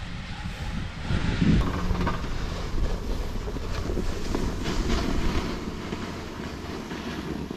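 Wind buffeting the microphone while a snowboard slides and carves over snow, a steady rushing noise with a heavy low rumble.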